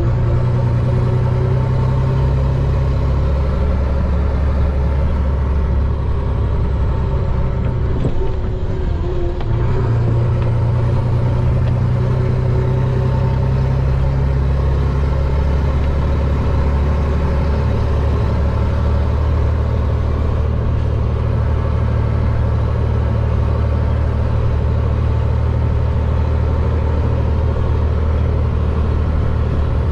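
Chenglong concrete mixer truck's diesel engine running, heard from the cab. Its tone shifts about ten seconds in and again near eighteen seconds as engine speed changes.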